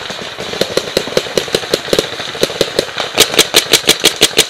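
Paintball marker firing a rapid string of shots, about six to seven a second. From about three seconds in the shots become much louder and sharper, a marker firing right by the microphone.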